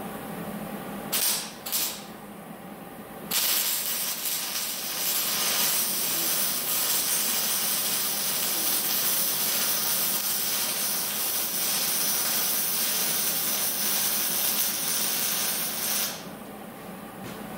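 Electric arc welding on steel pipe: two brief arc strikes about a second in, then a steady crackling hiss as a continuous weld bead is laid. The bead runs for about thirteen seconds and stops suddenly.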